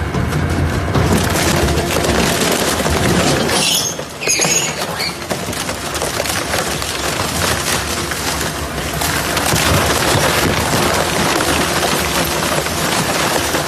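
Double-shaft shredder tearing up a refrigerator: continuous cracking, crunching and breaking of metal and plastic between the cutter shafts, with a brief high screech about four seconds in.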